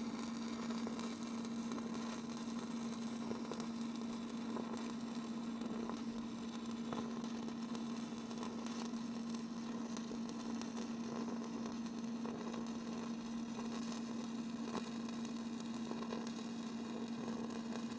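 Stick welding on steel: the electrode's arc crackling and hissing steadily as the bead is run, with a steady hum underneath.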